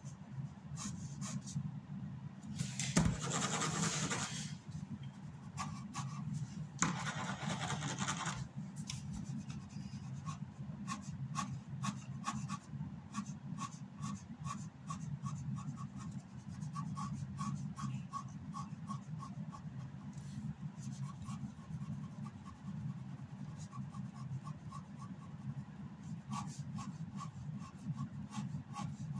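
Black ink pen scratching on drawing paper. There are two longer strokes a few seconds in, then a run of short, quick hatching strokes at about two or three a second, over a steady low hum.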